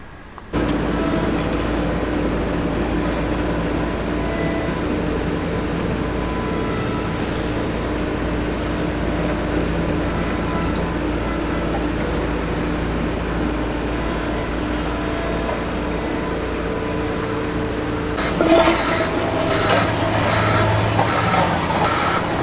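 Heavy road-paving machinery with a diesel engine running steadily, with a low rumble and held engine tones. About three quarters of the way through it turns busier, with rattling and knocking.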